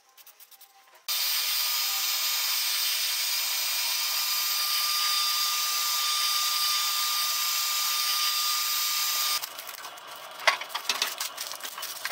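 Handheld Chicago Electric heat gun running, drying freshly sprayed touch-up paint: it comes on about a second in with a steady blowing hiss and a thin, even whine, then cuts off suddenly about three seconds before the end, followed by a few light clicks.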